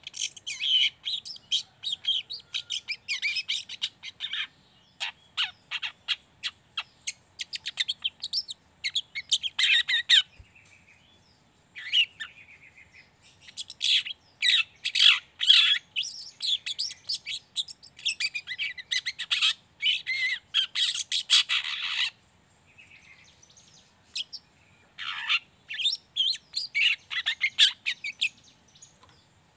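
A young long-tailed shrike (cendet trotol) singing a rapid, scratchy 'ngriwik' chatter. It comes in long runs of quick, harsh notes broken by short pauses.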